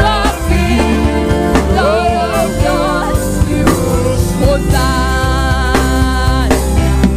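Gospel worship music: a choir singing over band accompaniment with a strong, steady bass and a regular beat.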